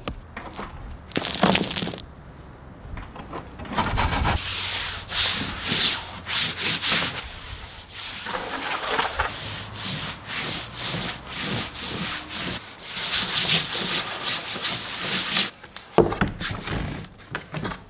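A hand with a cloth rubbing wood-grain vinyl sheet flat onto a plywood panel in repeated, uneven strokes, pressing it into the adhesive beneath. A single knock about a second and a half in.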